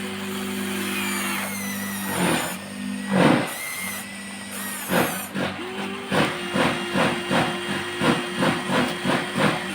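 Huina 1593 RC excavator's small electric motors running with a steady whine. A few short noisy strokes come early on, and in the second half they repeat quickly, about three a second.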